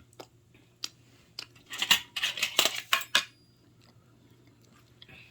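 Cutlery clinking and scraping against a plate: a few separate clicks, then a dense burst of clatter about two seconds in.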